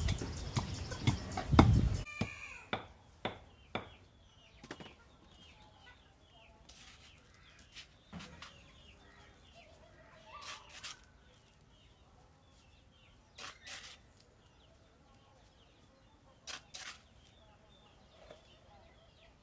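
Long wooden pestle pounding peanuts in a mortar, steady heavy thuds for about two seconds, then a few fainter strokes. After that, small birds chirp and chickens cluck in the background, with a few short sharp sounds.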